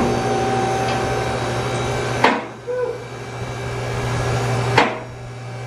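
A steady machine hum runs throughout, with two sharp knocks, one a little over two seconds in and one near the end.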